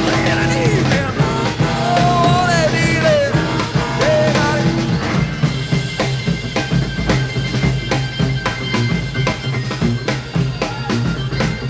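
Rock band playing an instrumental passage: organ over electric bass and a drum kit keeping a steady beat, with gliding melodic lines in the first few seconds.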